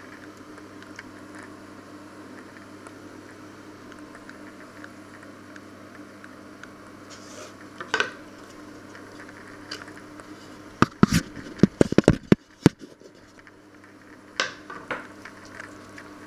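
Eggs, ham and cheese frying in a pan on the hob: a low, steady sizzle with faint crackles. A quick run of loud, sharp clicks and knocks comes a little past the middle, with single knocks before and after it.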